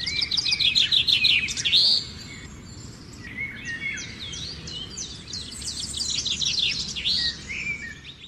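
Birds chirping and twittering in quick trills and short whistles, loudest in the first two seconds and again near the end, then cutting off abruptly.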